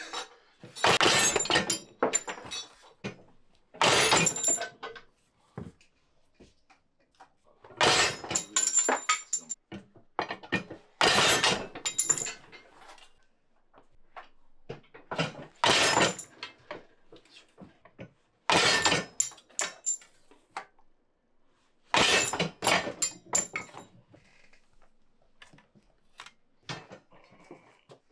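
Notching press cutting the corners out of copper sheet blanks: a sharp metallic cut and clatter with a high ringing, repeated about every three to four seconds, seven times, then softer handling noise near the end.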